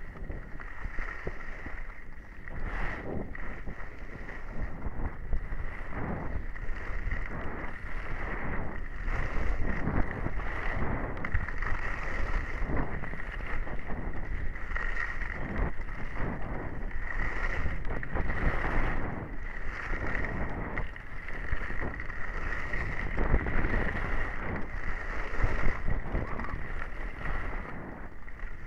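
Skis scraping and hissing over packed snow through a run of turns, swelling and easing every second or two, with wind rushing over a helmet-mounted camera.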